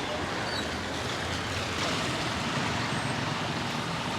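Steady street traffic noise, a continuous wash of passing vehicles.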